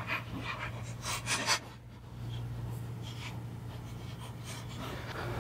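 Short scratchy rubbing and handling noises, strongest in the first second and a half and fainter after: hands fitting washers and nuts onto the bolts that hold a hydrofoil to an outboard's cavitation plate.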